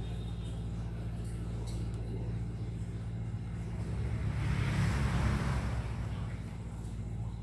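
A steady low hum. A rushing noise swells from about three seconds in, peaks around five seconds and fades away.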